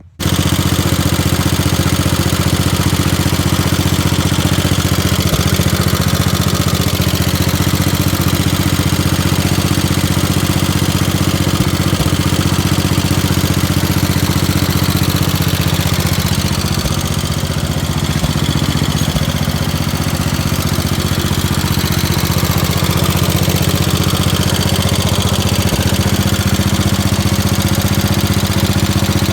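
Freshly rebuilt Kohler K321 single-cylinder engine on a 1969 Gravely 432 tractor running steadily on its first run after the rebuild, easing off slightly for a few seconds about halfway through.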